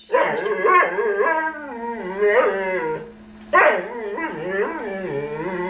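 A dog's long vocalizing, a drawn-out whining howl that wavers up and down in pitch: one run of about three seconds, a short pause, then a second run of about two seconds.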